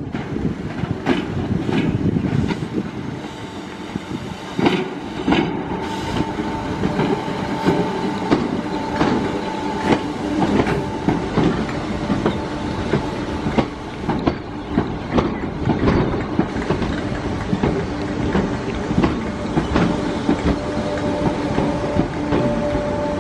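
Merseyrail third-rail electric trains moving slowly over station points and rail joints. The wheels click and clatter irregularly over a steady rumble, and a steady whine is held through the middle.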